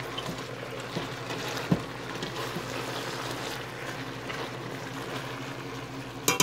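Chicken and chopped vegetables cooking in a stainless steel pot, a steady sizzling simmer with small crackles. A spoon knocks lightly against the pot a couple of times, and there is a sharp metal clink near the end.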